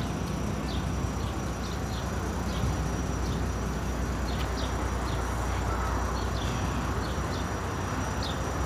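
Outdoor ambience: a steady low rumble, with a small bird's short high chirps repeating about once or twice a second.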